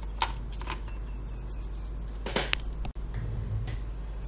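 Sharp plastic clicks and knocks as a laptop battery pack (ASUS A31N1601) is handled and lifted out of the laptop's plastic bottom case, the loudest a double click about two and a half seconds in, over a steady low hum.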